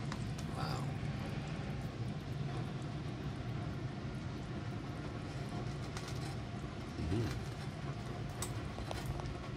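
A steady low hum, with a few faint clicks and taps as a slice of toast is lifted off the wire rack of an open toaster oven.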